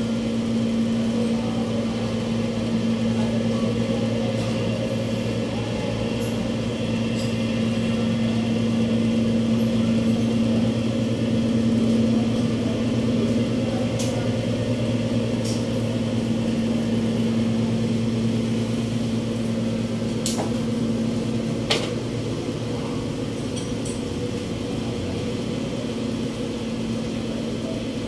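Electric hair clippers running with a steady buzzing hum while a haircut is in progress, with a couple of sharp clicks about halfway and again later on.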